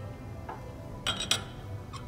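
Two quick metallic clicks a quarter second apart, from the chuck key being fitted into a jaw screw of a four-jaw lathe chuck, after a faint tick about half a second in.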